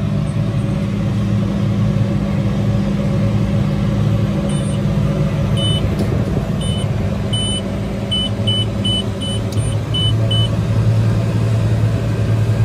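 Tractor diesel engine running steadily, a low continuous drone. From about four seconds in, a string of about a dozen short high electronic beeps sounds over it, spaced unevenly and coming faster toward the end.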